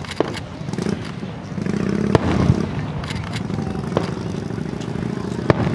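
Fireworks bursting: a string of sharp bangs and cracks, spaced irregularly about half a second to a second apart, over a steady low rumble that swells from under two seconds in.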